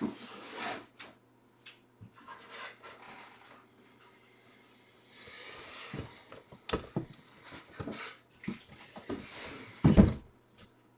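Cardboard boxes being handled and shifted: scattered rustling, scraping and light knocks, with a longer stretch of rustling about halfway through and a heavier thump near the end.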